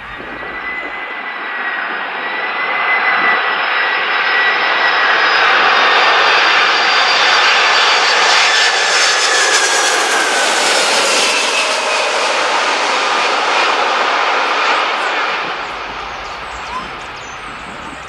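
Four-engine Boeing 747 freighter on final approach passing low overhead. The jet engine noise swells to a peak midway and then fades, with a high whine that slowly falls in pitch as the aircraft goes by.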